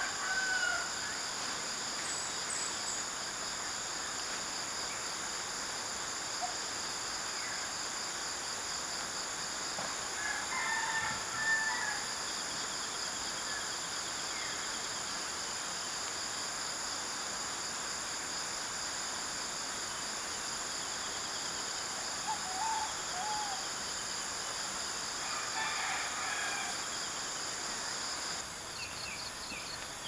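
Roosters crowing several times in the distance over a steady high-pitched insect chorus. The clearest crow comes a little before the middle.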